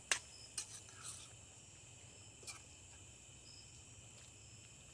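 Metal spoon clinking and scraping against a stainless skillet while stirring a stir-fry: a few sharp clicks in the first second and one more about two and a half seconds in. Crickets chirring steadily in the background.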